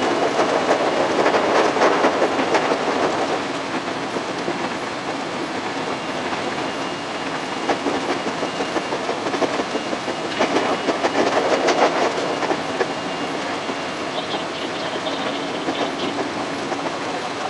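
Running noise of a JR 521-series electric train heard from the cab: a steady rumble of wheels on rail with repeated clicks. It is louder for the first few seconds as the train crosses a steel truss bridge, and again briefly later on.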